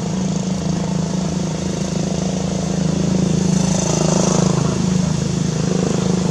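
A motor engine running steadily, a continuous low hum.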